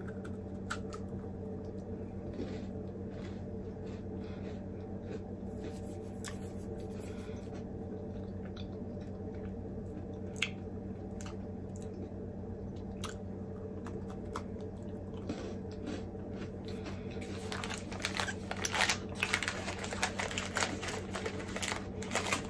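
Crunching and chewing of a chocolate-chip cream sandwich cookie close to the microphone, dense and louder over the last few seconds. Before that there are scattered small clicks, all over a steady low hum.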